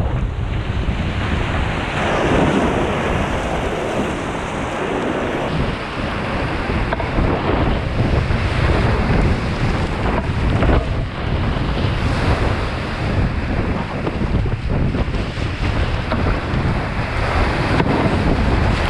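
Whitewater of a small stream in brown floodwater rushing and splashing around a kayak as it runs continuous rapids, heard close up. Wind buffets the microphone under it.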